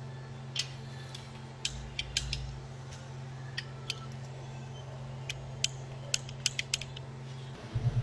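Torque wrench clicking as the rocker shaft bolts on a Duramax cylinder head are tightened to 30 ft-lb: scattered sharp metallic clicks, some in quick runs, over a steady low hum. Just before the end a louder pulsing low hum starts.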